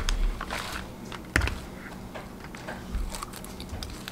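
Eating a salad of raw greens: a metal fork clicks against the dish several times, the sharpest click about a second and a half in, with chewing between the clicks.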